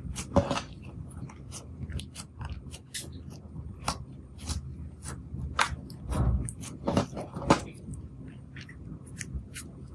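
Clear slime being kneaded, pressed flat and stretched by hand, giving irregular sticky clicks and pops, with a few louder ones past the middle.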